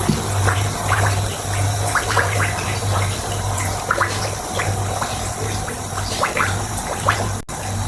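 Gushing, gurgling water over a music track with a pulsing low beat, with short high chirps scattered through it.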